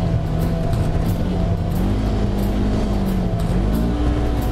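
Side-by-side UTV's engine running under way on a dirt trail, its pitch gliding up and down as the throttle changes, over steady trail and tyre noise. Music plays along with it.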